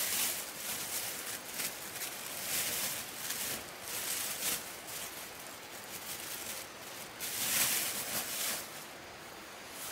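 Rustling of nylon tent fabric and gear as someone shifts about inside a small dome tent and handles things by a backpack. The rustles come in irregular bursts, the loudest a little under eight seconds in.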